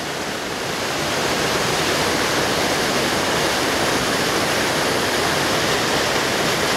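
Waterfall rushing: a steady, even roar of falling water heard from just above the falls.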